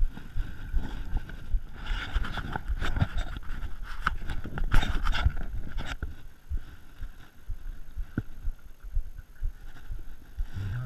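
Mountain bike rolling down a dirt trail: tyre rumble with the chain and frame rattling and knocking over bumps. A loud burst of scraping rattle comes about five seconds in, then quieter scattered rustling and knocks.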